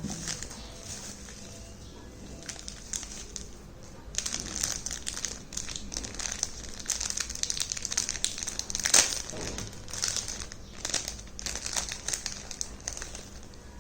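Packaging being handled and unwrapped, crinkling in irregular bursts, with the sharpest, loudest crinkle about nine seconds in.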